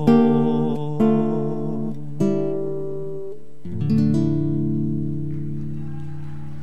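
Nylon-string classical guitar plucking a few single notes about a second apart. About four seconds in it strikes a final chord that rings out and slowly fades, closing a milonga.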